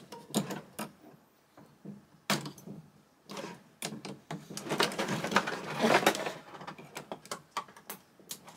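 Clear plastic packaging tray crackling and clicking as a hand works a plastic toy figure out of its moulded slot: a single sharp click about two seconds in, then a busy stretch of crinkles and clicks.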